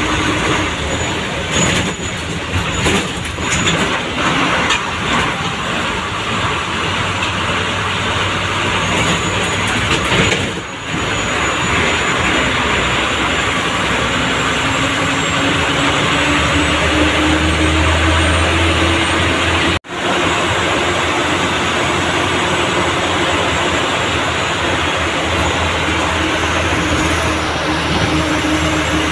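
MSRTC bus engine running under load, with road and cab rattle noise heard from inside the driver's cab. The engine note climbs steadily through the middle as it pulls. There are knocks and rattles in the first few seconds, and the sound cuts out for an instant about two-thirds through.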